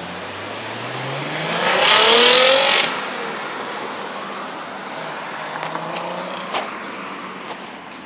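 2001 Audi S4's 2.7-litre twin-turbo V6 accelerating away, its note rising in pitch to a loud peak about two to three seconds in, then dropping and fading as the car drives off.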